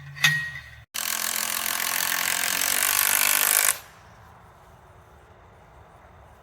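A ringing metal strike just after the start, then after a sudden break a loud, steady mechanical noise that runs for nearly three seconds and stops abruptly, consistent with backfilling and tamping the soil around a newly set pole.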